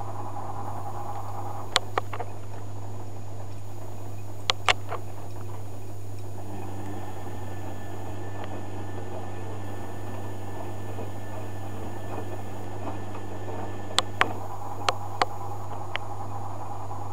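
Zanussi FJ1093 Jetsystem front-loading washing machine at the start of a cotton wash: a steady low hum, with the drum turning the wet laundry through the middle stretch. Sharp clicks come twice early on and in a quick cluster near the end.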